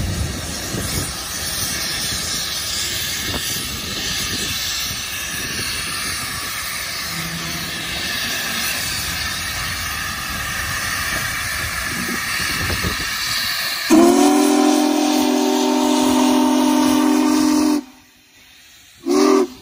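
Union Pacific 4014 Big Boy, a 4-8-8-4 articulated steam locomotive, moving slowly with a steady hiss of steam venting. About fourteen seconds in, its steam whistle sounds one loud chord of several tones for about four seconds, then a short blast near the end.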